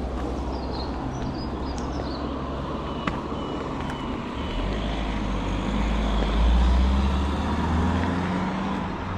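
Road traffic passing on a wide road: a steady low rumble, with one vehicle's engine and tyres building to a peak about six to seven seconds in and then fading away.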